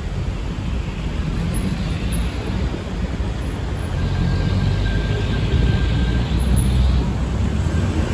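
Busy road traffic: a steady rumble of engines and tyres that grows louder about halfway through as vehicles pass close.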